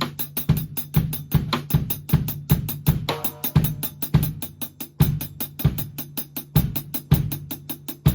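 Drum kit played in a steady beat: quick, even hi-hat strokes over bass drum and snare, the hi-hat sounding muffled.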